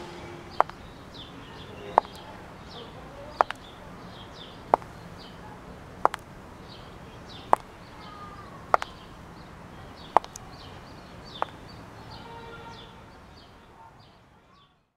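High-heeled shoes clicking on stone paving in slow, even steps, about one step every 1.3 seconds, nine in all. Birds chirp over a steady outdoor background, and everything fades out near the end.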